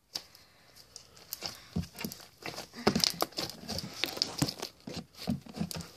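Homemade glitter slime squeezed and worked in the hands close to the microphone: a run of small wet clicks and squelches, starting about a second in.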